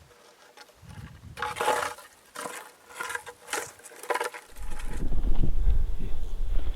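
A few short rustling noises, then from about halfway in a steady, gusting low rumble of wind on the microphone.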